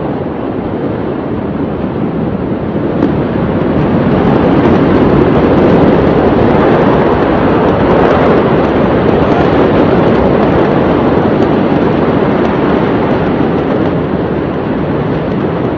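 Loud, steady rushing noise with no distinct events. It swells over the first few seconds, then eases slightly.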